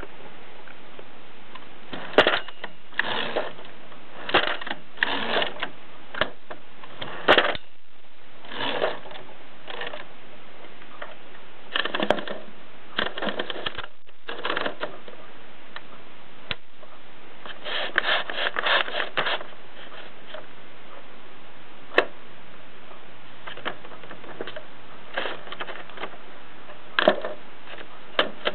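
1950s Express bakelite typewriter being typed on: keys striking in irregular clusters of sharp clacks with short pauses between, over a steady background hiss.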